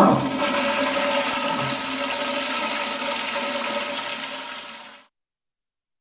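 Rushing, gurgling water noise that fades out over about five seconds and then cuts off to silence.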